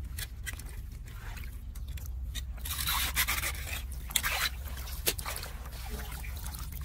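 Scraping and watery splashing as a small hand rake and gloved hands drag mud, grass and twigs out of a clogged roadside drain inlet in shallow floodwater, with a run of short sharp scrapes, a busier patch about three seconds in and two sharp knocks after it. A steady low hum lies underneath.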